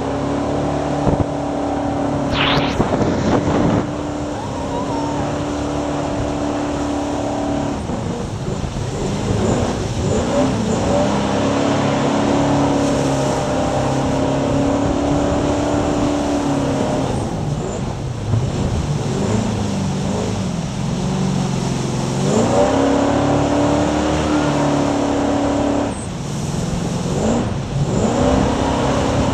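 Jet boat engine running hard, its pitch dropping and climbing again several times as the throttle is eased and opened through the turns of a high-speed run.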